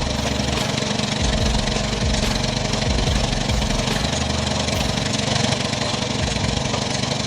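Engine of working machinery running steadily at an even level.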